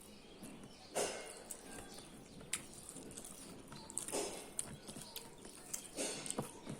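Close-up eating sounds: chewing with three louder short bursts, about a second in, in the middle and near the end, and several sharp mouth clicks and smacks in between.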